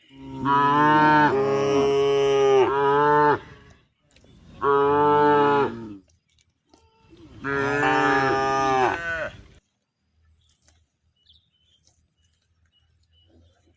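Cow mooing three times: a long call, a shorter one, then another long one.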